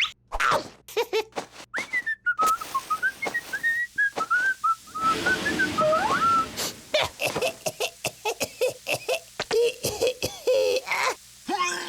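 A cartoon character whistles a short, wandering tune for about five seconds, followed by a quick run of clicks, knocks and short squeaky vocal noises.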